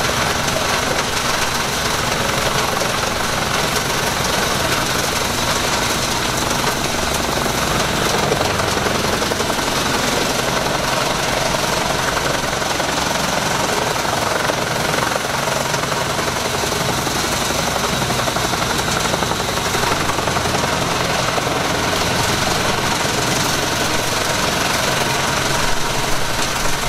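Pezzolato PTH500 tractor-driven wood chipper chewing through eucalyptus branches, a steady rattling, chopping noise over the Fiat 140-90 tractor's diesel engine working under load.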